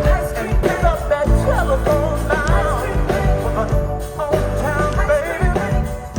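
Live soul-rock band playing, with singing over a steady bass line.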